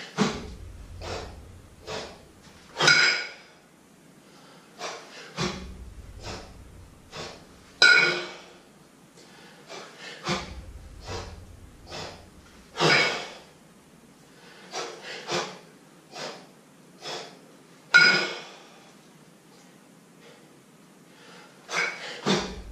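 A man breathing hard through a set of kettlebell jerks: short, sharp breaths about once a second, with a louder forceful breath about every five seconds.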